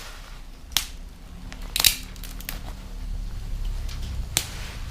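Fire of split disposable wooden chopsticks burning in a small grill, crackling with sharp, scattered pops, the loudest a quick cluster about two seconds in and another near the end.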